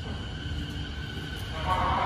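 E217 series electric train pulling out of the platform: a steady low rumble with faint high tones, joined about one and a half seconds in by a louder band of tones as it gathers speed.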